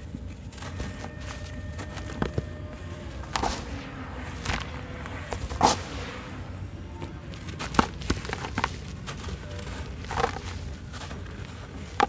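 Wet sand-cement ('sanment') chunks crumbled and squeezed by hand in a bowl of water: soft wet crumbling broken by irregular sharper crunches every second or two, the loudest about halfway through, over a steady low rumble.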